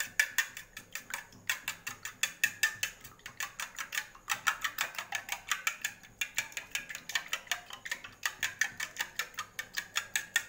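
Metal spoon beating raw eggs in a stainless steel bowl, clinking rapidly against the bowl at about six strokes a second, with a couple of brief pauses.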